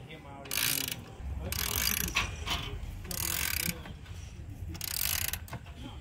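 Hex-socket ratchet wrench clicking in four short bursts, about every second and a half, as it turns an air conditioner's low-side (suction) service valve stem all the way closed.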